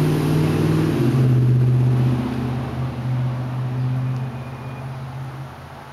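A motor vehicle's engine hum, steady and low, with a hiss that drops away about a second in; the hum then fades gradually over the last few seconds as the vehicle moves off.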